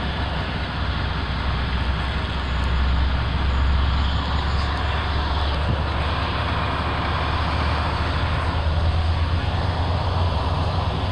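Truck engine idling steadily, heard from inside the cab as a constant low rumble.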